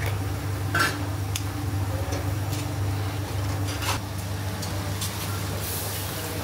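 Steady low hum of kitchen equipment, with a few sharp taps and clinks of eggs and steel bowls, the loudest about a second in.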